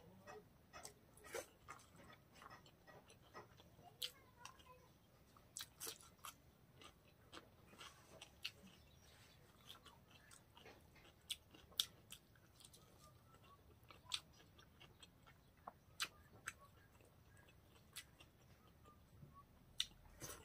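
Close-miked chewing of pork and rice, with irregular wet mouth clicks and smacks throughout, a few louder than the rest.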